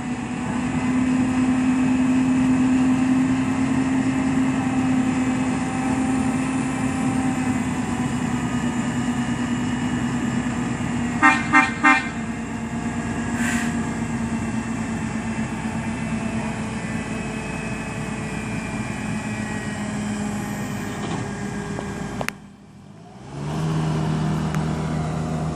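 Heavy equipment engine running steadily under load. About halfway through, three short horn toots sound in quick succession. Near the end the engine sound drops out for about a second and comes back at a lower pitch.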